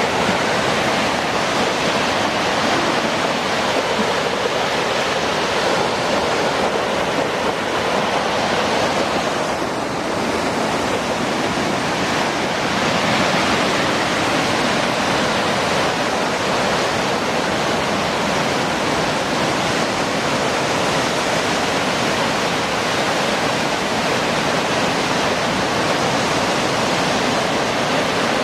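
Rain-swollen waterfall: a steady, loud rush of pouring water, its volume swelled by heavy rain.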